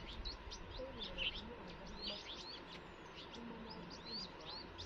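Small birds chirping: many short, quick, high chirps repeated throughout, fairly faint.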